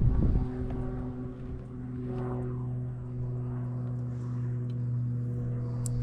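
A motor drones steadily with an even hum, with a gust of wind on the microphone in the first moment.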